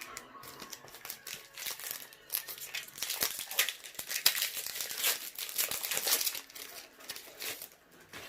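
A Pokémon card booster-pack wrapper being handled and crinkled, an irregular run of crackling that is loudest in the middle of the stretch.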